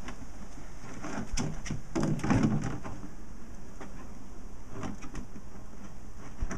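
Puppies playing on paving stones: a scatter of small knocks and scrapes from paws and toys, busier and louder for a moment about two seconds in.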